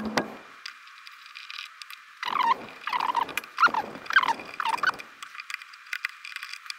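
Screw being unscrewed with a long hex key, squeaking in a run of about half a dozen short squeaks that bend in pitch, starting about two seconds in and lasting a couple of seconds.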